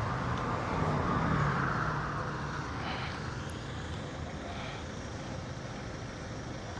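Road traffic noise: a vehicle passes with a rushing sound that swells a second or so in and then fades to a steady background.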